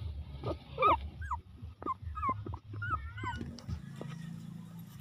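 Thirteen-day-old puppies whimpering and squeaking: short whines that rise and fall in pitch, the loudest about a second in, giving way to smaller, overlapping squeaks and soft clicks that fade over the last second or so.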